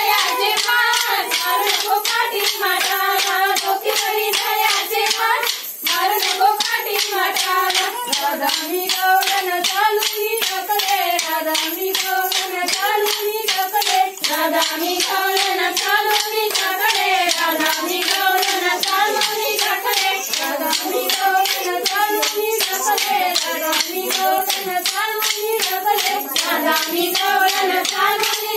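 Women singing a folk dance song in unison while short wooden sticks are struck together in a steady, fast rhythm of sharp clacks.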